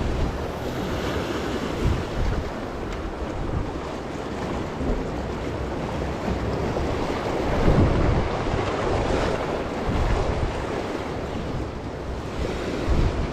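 Sea waves washing and breaking against shore rocks, with wind buffeting the microphone. The surf swells and falls irregularly, with a louder surge about eight seconds in.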